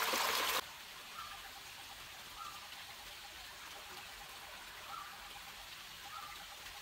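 A stream of water running from a spout through a cloth into a clay pot, cut off abruptly about half a second in. Then quiet outdoor background with a few faint short chirps.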